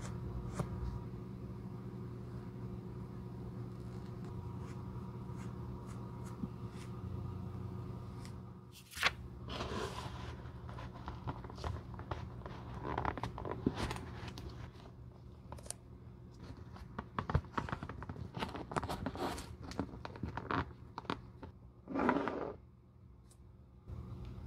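Light brushing along the edge of a leather boot sole over a steady low hum. About nine seconds in, this gives way to handling noise as a shoe tree is worked into a leather ankle boot: irregular scrapes, crunching rubs and small knocks, with one louder rubbing scrape near the end.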